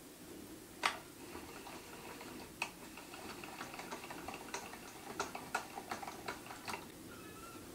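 Mini lathe's leadscrew handwheel being spun by hand, winding the carriage along the bed: a sharp click about a second in, then irregular light mechanical ticks and clicks.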